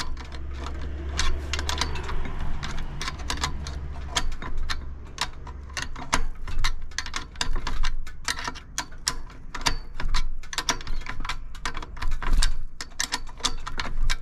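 Ratchet wrench clicking in quick, uneven runs as a nut is wound a long way down a bolt being tightened.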